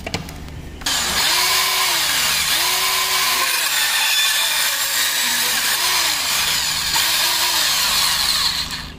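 Makita DPB182 18V cordless portable band saw cutting through a metal tube held in a vise. The cutting noise starts abruptly about a second in and stays steady and hissy, with a lower hum that rises and falls in pitch several times, then dies away near the end.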